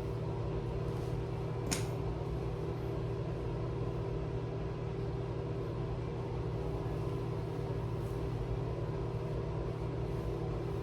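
Steady low mechanical hum with a few constant tones, like a fan or motor running, with one brief click about two seconds in.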